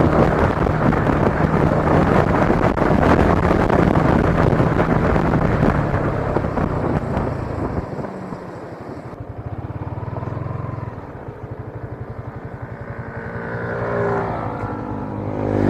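Yamaha Sniper 155R's single-cylinder engine running as the motorcycle is ridden, with wind rushing over the microphone. About eight seconds in the wind rush drops away and the engine is quieter, then its note rises and falls with the throttle near the end.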